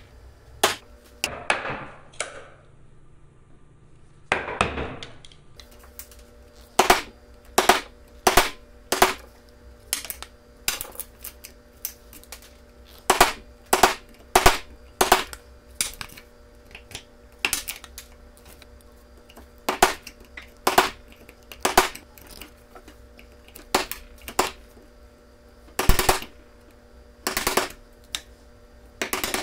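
Bench chisel struck by a mallet, chopping waste out of a joint socket in a pine board: sharp knocks in irregular clusters of one to three, about every half second to second. Two brief scraping sounds come in the first five seconds.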